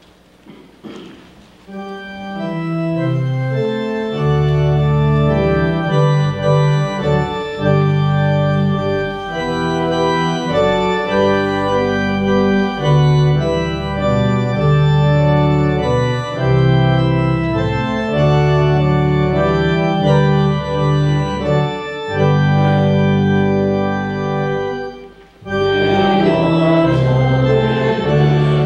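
Church organ playing a hymn, sustained chords over a moving bass line, coming in softly and swelling within the first few seconds. About 25 seconds in it breaks off briefly, then comes back fuller, with voices starting to sing.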